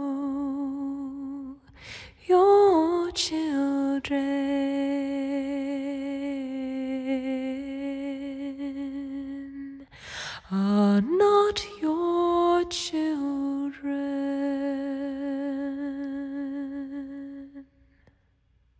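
A voice singing a slow, wordless melody in long held notes, with short breaks about two seconds in and again about ten seconds in; it stops about a second before the end.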